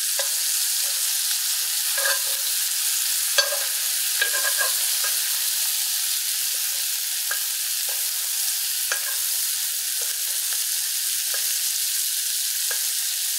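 Sea scallops and foaming butter sizzling steadily in a hot cast-iron skillet, with occasional light clicks of a metal spoon against the pan as the melted butter is basted over them.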